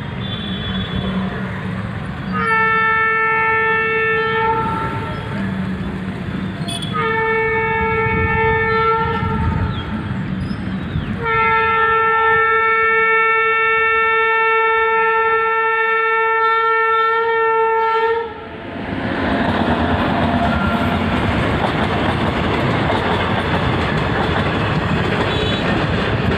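A train's horn sounds three times as it approaches at speed: two blasts of about two seconds each, then one long blast of about seven seconds. The horn then stops and gives way to the steady noise of the train running past fast, wheels on rails.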